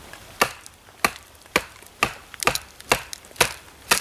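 Batoning: a wooden baton knocking on the spine of a Benchmade Bushcrafter knife to split a small piece of wood, about eight sharp knocks at roughly two a second.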